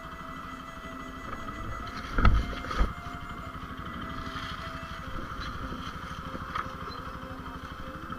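Motorcycle engine running steadily at low revs, with two loud thumps about two seconds in, half a second apart.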